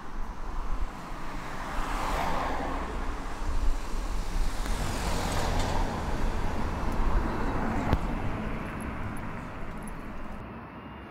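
Road traffic: vehicles passing with a steady low rumble that swells as one goes by about two seconds in and another around five seconds in.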